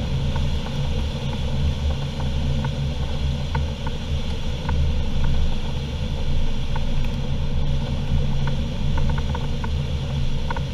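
Steady low drone inside a DG505MB motorglider's cockpit in flight, with faint scattered clicks.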